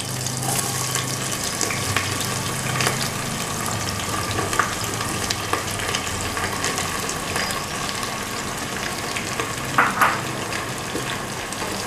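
Sliced onions sizzling in hot oil in a pressure cooker, a steady sizzle with scattered crackles and a couple of louder pops near the end.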